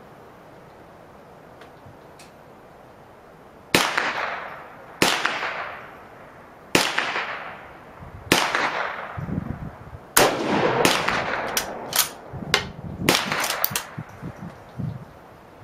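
Gunshots, each with a long trailing echo: about five single shots a second or more apart starting about four seconds in, then a quicker string of shots near the end.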